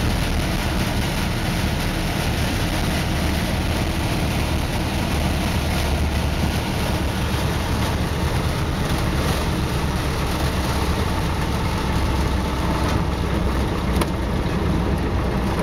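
Clipped-wing Cub's engine running steadily at low power, with wind and rumble, as the plane lands and rolls out along the runway.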